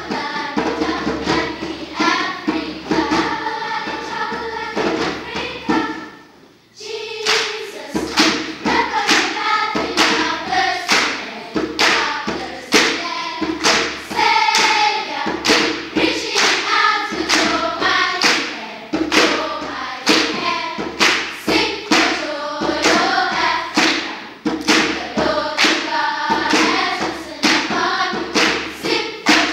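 Children's choir singing in harmony over a hand drum beaten in a steady rhythm. The singing and drumming drop away briefly about six seconds in, then come back together.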